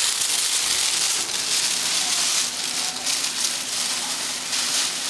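Tissue-paper wrapping rustling and crinkling continuously as hands rummage through it in a cardboard box.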